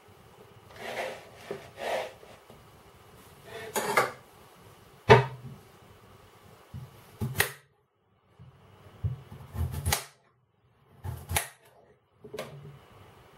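Kitchen knife chopping potato on a glass chopping board: a string of irregular knocks and clicks of the blade striking the board, with a few softer slicing scrapes, the loudest knock about five seconds in.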